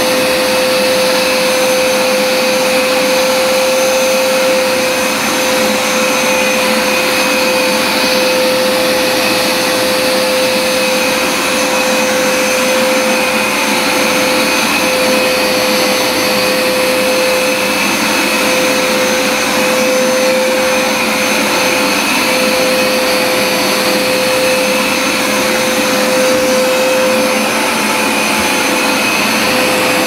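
Hoover SmartWash upright carpet washer running steadily, its motor giving a constant whine over the rush of suction.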